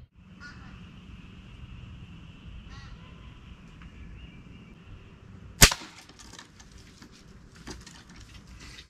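Mini Striker RD pistol crossbow firing: one sharp snap a little past halfway, followed by a scatter of light clicks and rustles.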